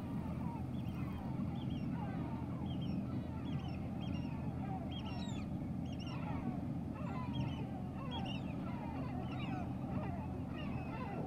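Many birds calling over and over in short, quick cries, over a steady low rumble.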